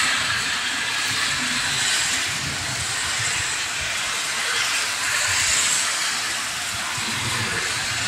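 Steady hiss of rain and of car tyres on a wet road, with an uneven low traffic rumble underneath.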